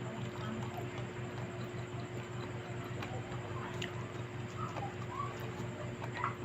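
Close-up eating sounds: soft chewing with scattered small wet clicks, over a steady low hum.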